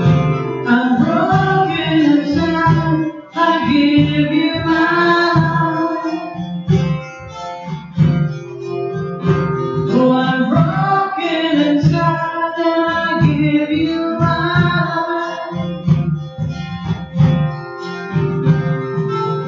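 Live worship song: acoustic guitar strummed steadily under a sung melody, with the vocal phrases coming and going between guitar passages.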